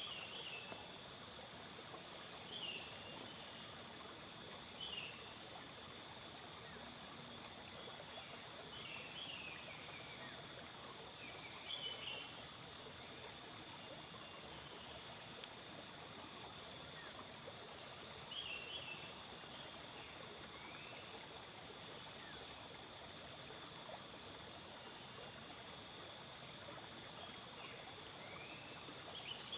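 Insects trilling steadily at a high pitch, with short series of rapid pulsed chirps repeating every two seconds or so, and scattered brief bird chirps.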